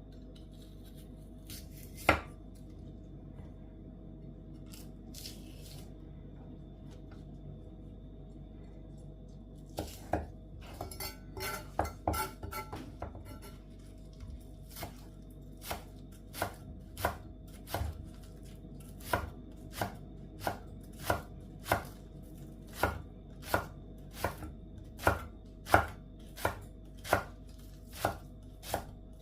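Knife chopping on a cutting board: a single knock, a short flurry of quick cuts, then steady, evenly spaced chops a little more than one a second.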